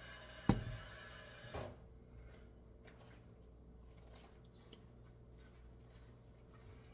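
A frying pan set down on a glass-top electric stove burner with a sharp clunk about half a second in, then a softer knock about a second later. After that only a low, steady background with a few faint ticks.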